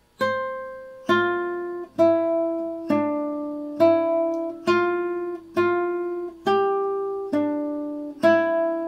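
Nylon-string classical guitar, capoed at the fifth fret, playing a slow single-note melody with alternating-finger free strokes. There are ten evenly spaced plucked notes, a little under one a second, each ringing on into the next.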